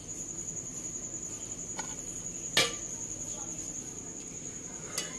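Metal spoon knocking against the metal cooking pot as boiled rice is spread in it: one sharp knock about two and a half seconds in, with fainter taps before and after. A steady high-pitched trill runs underneath throughout.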